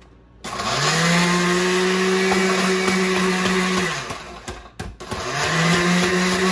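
Oster countertop blender grinding graham crackers into crumbs, run in two pulses. The motor spins up, runs steadily for about three and a half seconds and winds down, then starts again about a second later.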